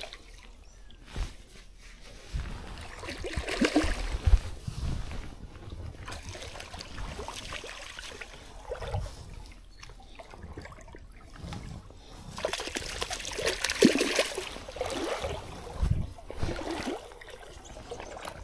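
Water sloshing and trickling in irregular surges, with a few low thumps; it swells twice, about four seconds in and again around thirteen to fifteen seconds in.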